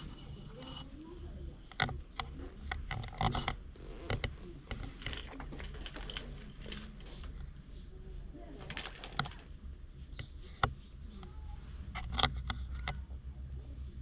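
Fabric and fur rustling with scattered soft clicks and knocks as a hand strokes a ginger cat lying on a lap against a jacket.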